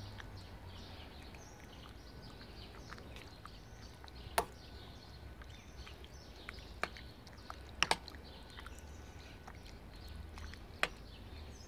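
Metal spoon stirring a thick stew in a stainless steel pot, clinking sharply against the pot about five times, the loudest two near the middle. Underneath there is a low steady rumble and faint bird chirps.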